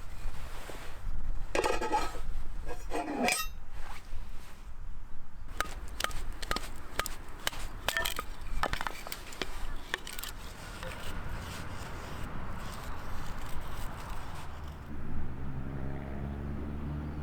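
Camp cookware and utensils being handled: a run of clinks, knocks and a few scrapes. A steady low hum sets in near the end.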